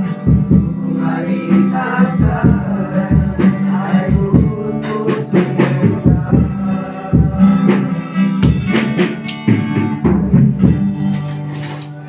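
A group of young voices singing a song together, accompanied by a strummed acoustic guitar with a steady rhythm; the music winds down and stops near the end.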